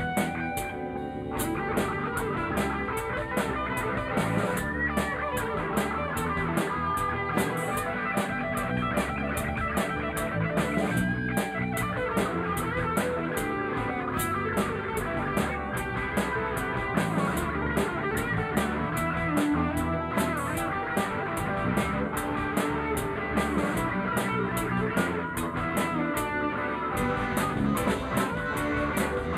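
Live rock band playing an instrumental passage with no singing: electric guitar, bass guitar and drum kit, the cymbals keeping a steady beat of a little over two strokes a second.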